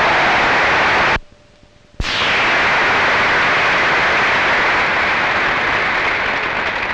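A hall audience applauding, a dense and loud clapping. It cuts off abruptly about a second in and resumes just as suddenly a second later, then starts to fade near the end.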